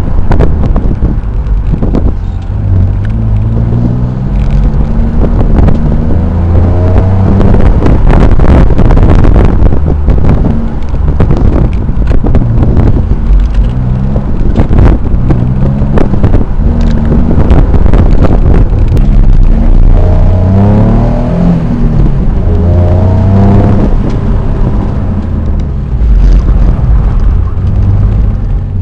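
Twin-turbo 3.5-litre V6 of a 2004 Nissan 350Z roadster driven hard, the revs climbing and falling again several times through gear changes. Heavy wind buffeting on the microphone runs underneath.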